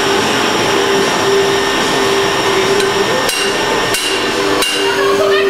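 Shop machinery running steadily with a constant hum, with three sharp knocks in the second half, each about two-thirds of a second apart.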